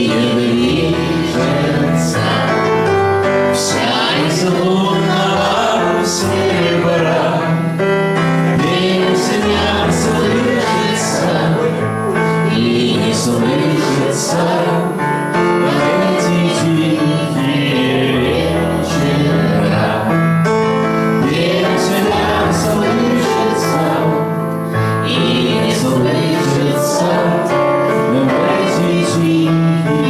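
A man singing into a microphone while accompanying himself on a Yamaha electronic keyboard, with steady chords under the voice.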